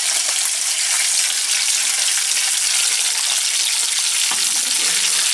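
Breaded fish pieces sizzling steadily in hot oil in a frying pan on a portable gas-canister stove.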